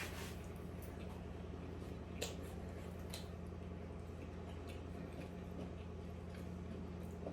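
Quiet eating sounds: soft chewing with a few small sharp clicks, over a steady low hum.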